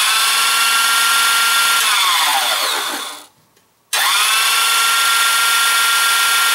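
Electric meat grinder's DC motor, powered through an added rectifier in place of its original control board, running with a steady whine. It is switched off about two seconds in and winds down with falling pitch, then is switched back on about four seconds in, spinning up quickly and running steadily again.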